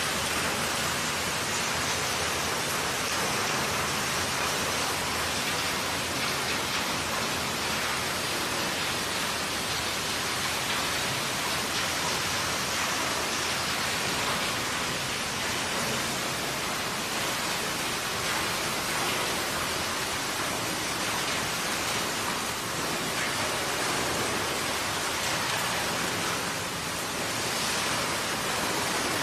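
A scrap metal crusher plant running: a steady, even din of machinery with no distinct strokes.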